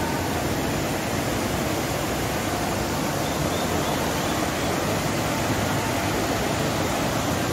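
Steady rush of a shallow mountain river running over boulders and small rapids.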